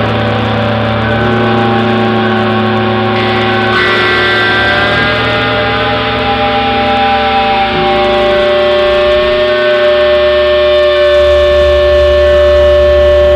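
Loud music of layered sustained notes and drones, the chords shifting slowly with no clear beat; a brighter layer comes in about three seconds in.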